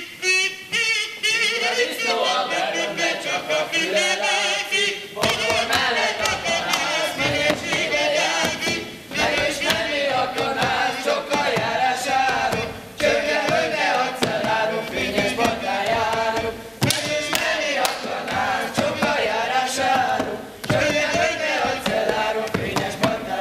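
Live Hungarian folk string band playing a lively jumping-dance (ugrós) tune. A lone melody starts at once, and bass and accompaniment join about five seconds in. Sharp knocks of a dancer's boots on the wooden stage come now and then.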